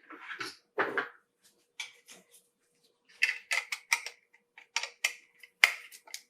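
Small clicks and scrapes of hands and a screwdriver working the wire terminals of a plastic wall switch, a quick irregular run of sharp ticks that gets busier about halfway through.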